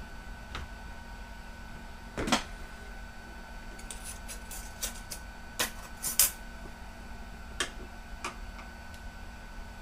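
Scattered clicks and snaps of a laptop's plastic case and parts being pried apart by hand, the loudest about two seconds in and a quick run of light clicks a little past the middle. A faint steady hum sits underneath.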